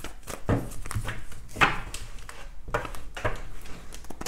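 A deck of tarot cards being shuffled by hand: an uneven run of soft slaps and taps of the cards, with one sharper tap about a second and a half in.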